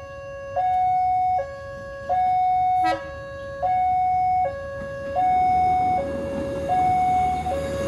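Railway level-crossing warning alarm sounding a steady two-tone high-low signal, the tones alternating about every three-quarters of a second, warning of an oncoming train. Over the last couple of seconds the rumble of the approaching train rises beneath it.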